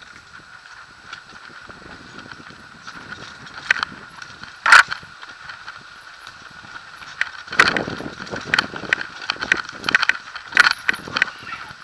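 Mountain bike rattling and knocking as it rolls down a rocky scree trail, with a steady high hum underneath. One sharp loud knock comes about five seconds in, then a run of knocks and clatters over the rocks in the second half.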